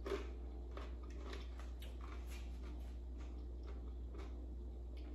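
A person chewing a mouthful of crisp tostada with tuna salad, faint scattered crunches over a steady low hum.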